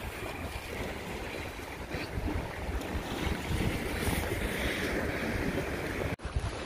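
Small sea waves washing against shoreline rocks, with wind gusting on the microphone as a low rumble. The sound cuts off suddenly near the end.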